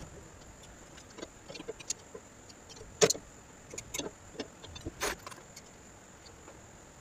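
Metal hand tools clicking and clinking on bolts, with sharper metallic knocks about three seconds and five seconds in.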